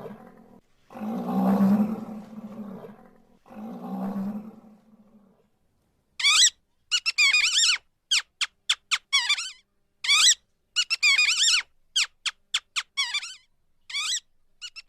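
A gorilla's deep roaring calls, three in a row, then a quick string of short, high, warbling squeaks from a different animal.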